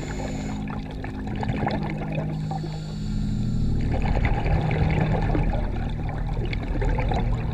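Slow ambient music of held, droning chords that shift about three seconds in, over a steady underwater crackling and bubbling.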